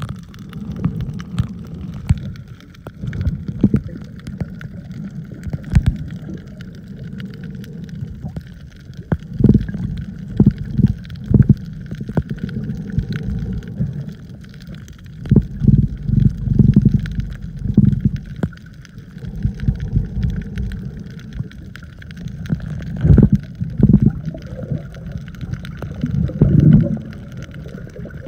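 Water sloshing and gurgling, heard muffled through a camera held underwater: a low rumble that swells in irregular surges, with a few faint clicks.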